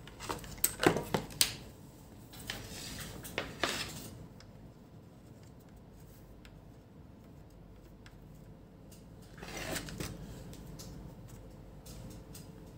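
Handling noises from multimeter probes and cables on a workbench: several sharp clicks and rubbing in the first few seconds, then a short rustle about ten seconds in.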